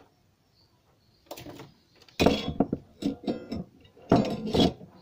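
A printed circuit board being shifted against a CRT TV's plastic chassis: a few loud scraping, creaking bursts starting about a second in, some with a squeaky pitched edge.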